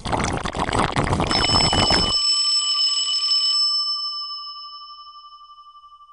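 A bell-like chime rings out about a second in, a few steady pitches together with a pulsing shimmer, fading away over several seconds. Under its start, a dense clattering noise cuts off suddenly about two seconds in.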